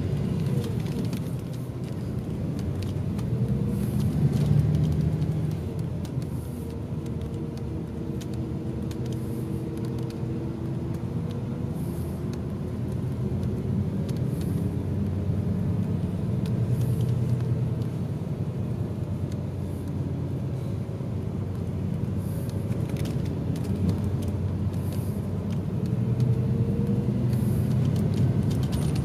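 Highway coach's diesel engine and road noise heard from inside the moving bus, the engine note slowly rising and falling as it changes speed.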